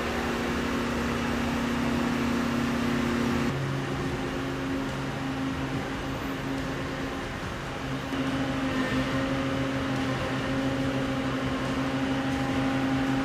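Steady droning hum of shipboard machinery and ventilation in an aircraft carrier's hangar bay, a low hum with a noisy hiss over it. The pitch of the hum shifts about a third of the way in, and it gets a little louder about two thirds of the way in.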